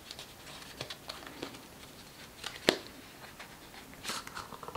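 Faint handling noise from an eyeshadow palette being turned over and examined in the hands: small clicks and rustles, with one sharper click about two and a half seconds in.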